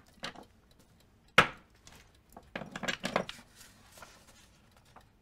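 Small objects being handled and set down on a shop counter: one sharp knock about a second and a half in, then a quick cluster of clicks and clatter a second later.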